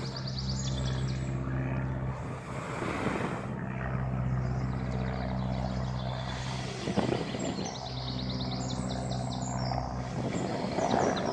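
Someone blowing several times into the fire base of a Kelly kettle to get the twig fire drawing, each blow a breathy rush. Birds trill in the background over a steady low hum.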